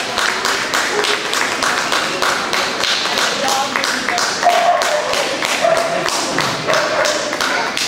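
Spectators clapping steadily, many claps a second, with voices under the applause.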